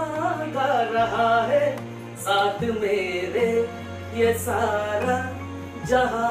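A Hindi song playing: a singing voice over instrumental accompaniment with held bass notes that change every second or two.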